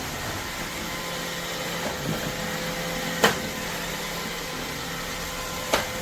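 iRobot Roomba Vac Essential (Q0120) robot vacuum running: a steady motor hum with a faint steady tone in it. It is broken by two short sharp clicks, about three seconds in and again near the end.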